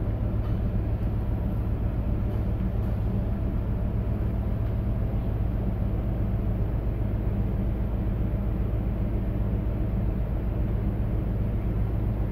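Steady low hum of a container ship's machinery under way, heard inside the enclosed bridge, with a few faint ticks in the first three seconds.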